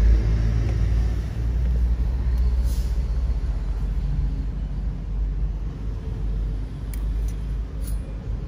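Steady low background rumble, with a brief hiss about a third of the way in and a few light clicks near the end.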